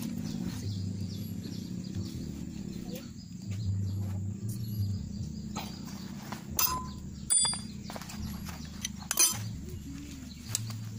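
A few sharp metal clinks from hand tools and parts knocking against a motorcycle front fork leg as it is reassembled, over a steady low hum that comes and goes.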